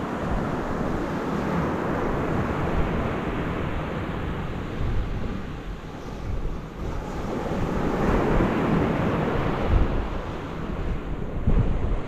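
Sea waves breaking against rocks and washing along the shore, the surf swelling loud twice and easing in between, with wind rumbling on the microphone.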